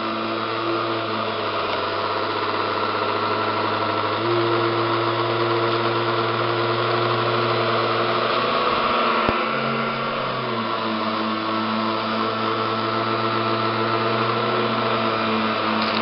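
Royal upright vacuum cleaner running steadily as it is pushed over shag carpet, a constant motor whine and hum. Its tone shifts a little about four seconds in and again about ten seconds in, with one short click just past nine seconds.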